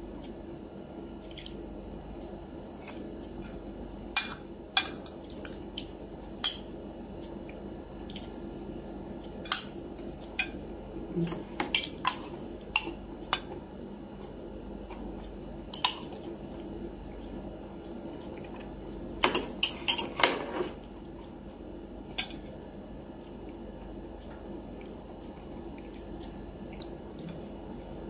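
Metal fork and spoon clinking and scraping on a ceramic dinner plate while eating. Scattered sharp clicks come in short busy clusters about four seconds in, around ten to thirteen seconds, and again around nineteen to twenty seconds.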